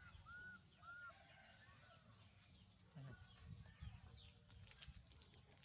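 Faint animal calls: three short arched squeaks in the first second, with scattered high chirps and low rumbling thumps throughout.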